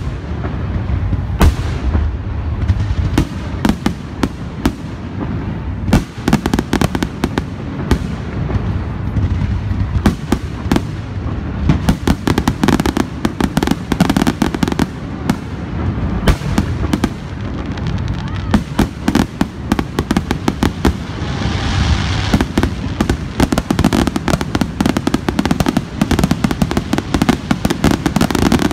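Aerial fireworks display: shells bursting in quick, overlapping succession with sharp bangs over a continuous low rumble. The bangs come thicker and faster after about twelve seconds.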